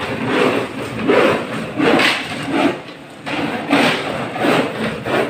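Steel shovel scraping and digging into a pile of sand and cement mix, in repeated irregular strokes.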